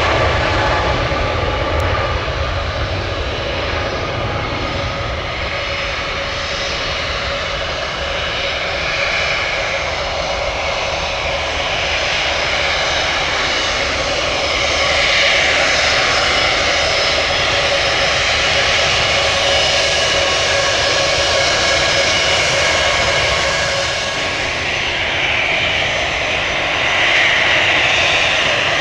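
Jet airliner engines running: a steady rush with a high whine over it, swelling a little about halfway and again near the end.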